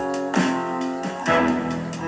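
Background music: guitar chords strummed about once a second.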